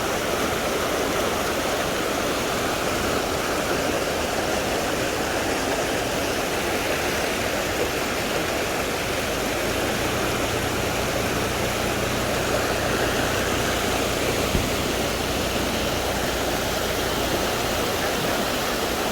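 Waterfall rushing: a steady roar of falling water. A low rumble joins about halfway through and stops shortly before the end.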